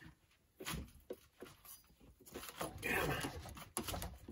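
Faint clicks and knocks of a socket wrench on a water heater's anode-rod fitting, then, about two seconds in, a man grunting and breathing hard as he strains on a long copper-pipe cheater bar to break the seized anode rod loose.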